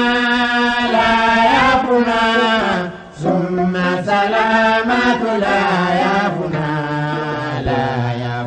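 Solo voice chanting an Islamic devotional song in Soussou in long, drawn-out melismatic notes without clear words. There are two sustained phrases, the second starting after a brief breath about three seconds in.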